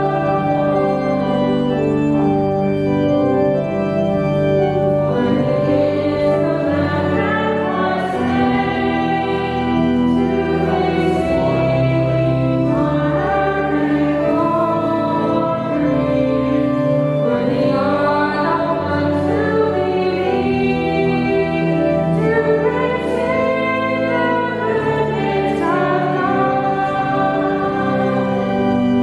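Choir singing a slow hymn with organ accompaniment, long held chords changing every second or two.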